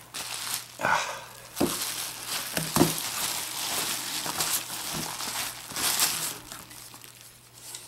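Bubble wrap crinkling and rustling as it is handled and pulled off a wrapped airsoft gun part, with a few sharp clicks mixed in.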